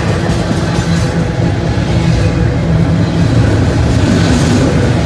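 Double-stack container well cars of a freight train rolling past at close range: a steady, loud rumble of steel wheels on rail.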